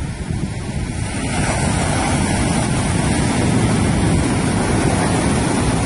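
Ocean surf washing and breaking, with wind buffeting the microphone; the rush swells about a second in and holds steady.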